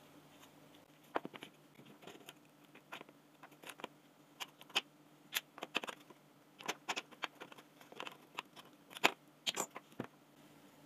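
Irregular clicks and taps of a cordless drill's plastic housing parts and its motor and gearbox unit being handled and set down on a glass tabletop during disassembly. The loudest click comes near the end, over a faint steady low hum.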